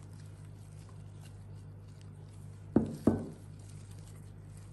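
Two dull thumps about a third of a second apart, a little under three seconds in, as chopped green peppers are tipped from a bowl into a clay pot, over a steady low hum.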